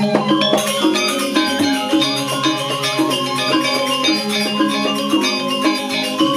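Balinese gamelan ensemble playing: bronze-keyed metallophones struck with wooden mallets in fast, interlocking ringing notes over a steady low tone, with a quick metallic clatter joining in about half a second in.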